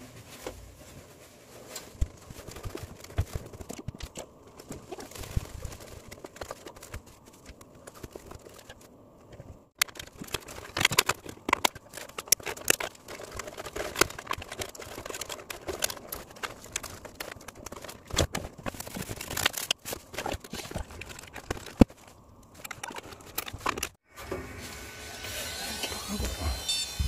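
Rustling, rubbing and clicking of gloved hands working inside a desktop PC case: old thermal paste is wiped off the CPU with a tissue and the cooler fan is refitted, much of it in sped-up footage with abrupt cuts. About 24 seconds in, a steadier whirring with a high whine sets in.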